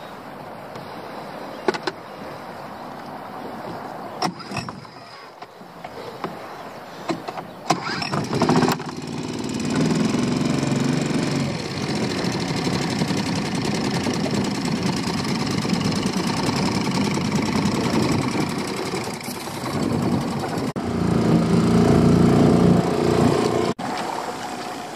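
Small Honda four-stroke outboard motor running as the boat moves across the water, with a few sharp knocks in the first few seconds. The engine grows much louder about a third of the way in and stays steady, with abrupt changes near the end.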